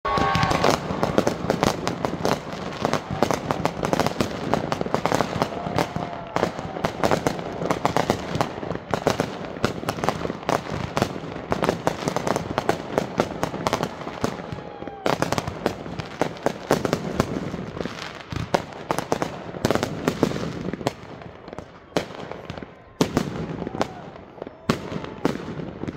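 Consumer fireworks firing in rapid volleys: dense launch thumps and shell bursts with crackling, several bangs a second, thinning out a little in the last few seconds.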